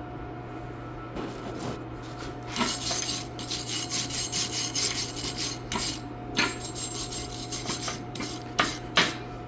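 Wire brush scrubbing a freshly welded steel joint in quick, irregular back-and-forth strokes, ending with two sharp knocks. A steady electrical hum from the idling welding transformer runs underneath.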